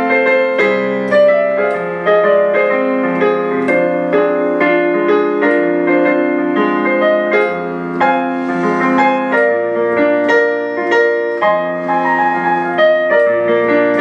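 Background piano music: a steady run of notes with chords beneath.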